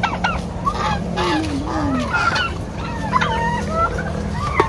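A flock of farmyard poultry calling: many short, overlapping calls from several birds, with one lower, falling call in the first two seconds.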